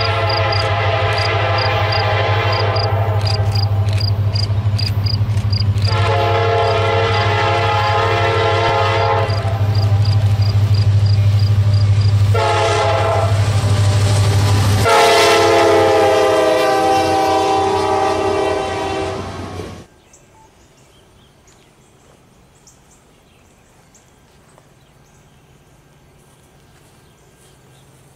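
Diesel freight locomotive blowing its chime air horn in the grade-crossing pattern: long, long, short, long. The engine runs steadily under the horn as the train approaches and passes. The last long blast ends and the sound cuts off abruptly about 20 seconds in, leaving faint outdoor ambience.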